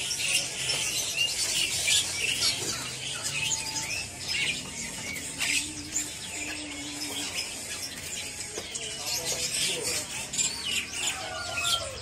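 Many caged songbirds chirping and twittering at once, a constant mix of short high calls and quick rising and falling notes.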